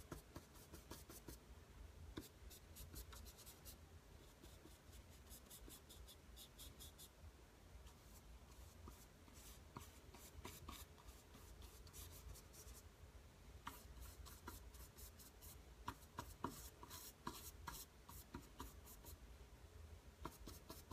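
Faint, quick scratchy strokes of an oil-painting brush working paint, coming in runs with a short lull about a third of the way in.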